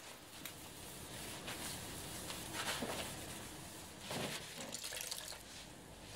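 Water splashing and dripping as a wet sponge is dipped into a plastic tub of water and squeezed out, in two short bursts, the louder one about four seconds in, among light wet rubbing and small clicks.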